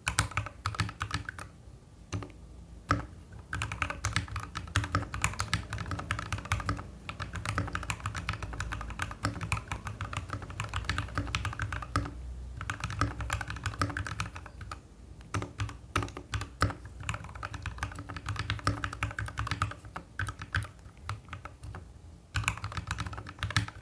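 Typing on a mechanical keyboard fitted with linear switches: fast runs of keystrokes broken by a few short pauses.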